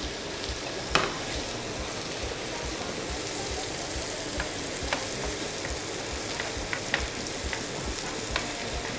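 Sliced sausage and vegetables sizzling steadily in a frying pan as they are stirred with a wooden spatula, with a few sharp clacks of the spatula against the pan.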